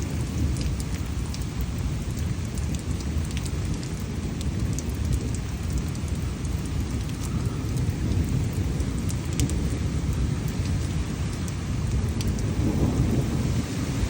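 Thunderstorm ambience: a continuous low rumble of thunder, with faint scattered ticks over a steady haze of noise.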